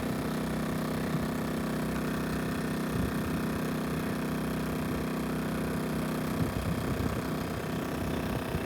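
A steady mechanical hum with a constant low drone, and some faint irregular rustling about six and a half seconds in.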